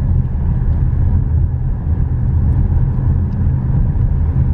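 Car engine and tyre noise heard from inside the cabin while driving: a steady low rumble.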